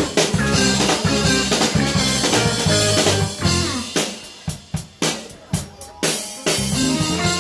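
A live band plays: a saxophone section, trumpet, keyboard and drum kit over a strong bass. About four seconds in the music breaks into a run of short, sharp hits with gaps between them for about two seconds, then the full band comes back in.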